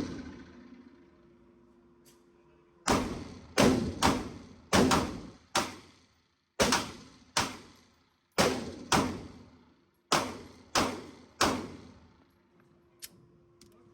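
Gunshots at an indoor range, fired at a steady pace: about a dozen sharp reports, roughly half a second to a second apart, each with a short echo. They start after a pause of about three seconds.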